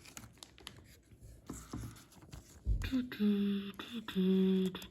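Soft rustles and clicks of trading cards and a card sleeve being handled, then a man humming two short held notes, with a brief slide into each, in the second half.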